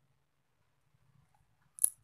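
Faint handling noise as macrame cord is wrapped around a wooden stick, with one sharp click near the end.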